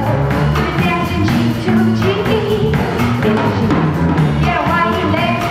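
Live jazz band music.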